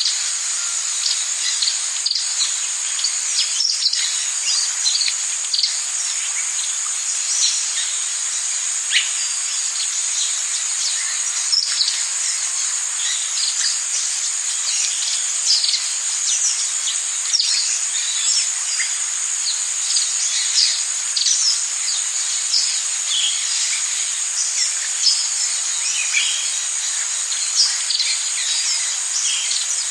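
Tropical rainforest chorus: a steady, high-pitched drone of insects with many short bird chirps and calls scattered over it.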